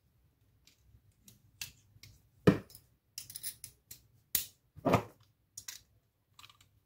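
Small hand tools and a metal padlock being handled: a string of sharp clicks and clinks, with two louder knocks on the table about two and a half and five seconds in.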